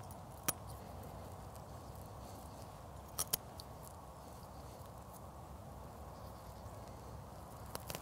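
Small knife cutting the plastic mesh net off a bird fat ball: a few faint clicks and snips, one about half a second in, two in quick succession just after three seconds, and one near the end, over a faint steady background hiss.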